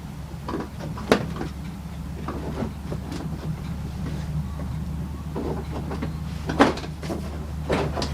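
Hard plastic clicks and knocks from a car's front bumper cover being handled and pushed into place, the sharpest about a second in and again around six and a half seconds, over a steady low hum.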